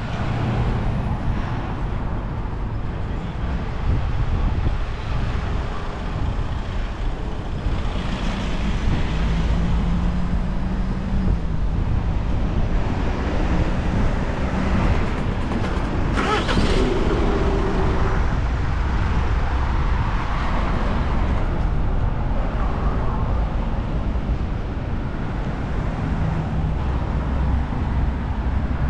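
Road traffic on a city street: cars and vans passing, a steady low rumble of engines and tyres. A short hiss cuts through about halfway.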